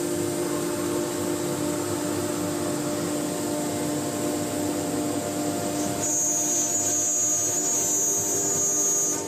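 ATC CNC wood router running, a steady mechanical hum from its spindle and drive motors; about six seconds in a high-pitched whine sets in and the machine gets a little louder.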